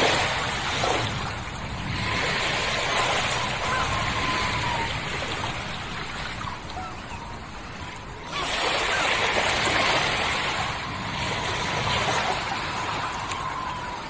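Ocean surf: waves washing in and out in slow surges, with a sudden loud one about eight seconds in. A faint steady high tone runs underneath.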